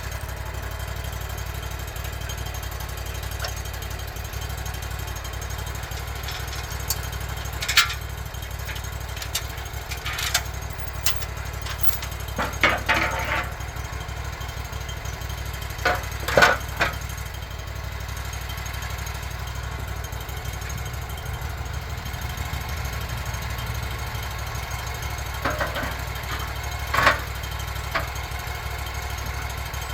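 Sawmill engine idling steadily, with scattered sharp knocks and scrapes over it, a cluster of them in the middle and another near the end.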